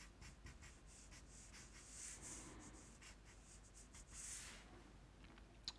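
Faint scratching of a felt-tip marker on paper: a run of short strokes, with two longer hissing strokes about two and four seconds in, as dark areas are inked in.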